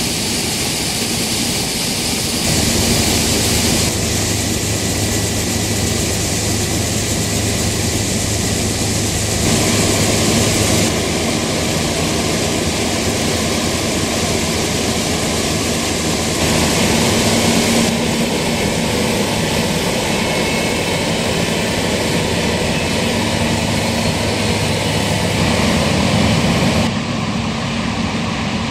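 Heavy farm machinery at work harvesting corn: the diesel engines of a combine harvester and tractor running steadily, with a low engine hum under a broad rushing noise. The tone and loudness change abruptly several times.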